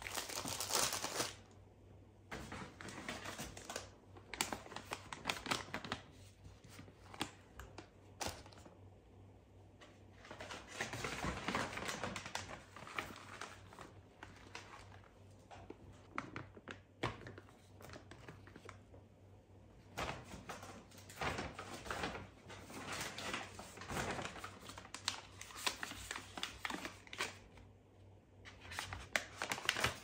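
Plastic food packets and a paper grocery bag crinkling and rustling as groceries are handled and unpacked, in irregular bursts with light knocks as items are set down.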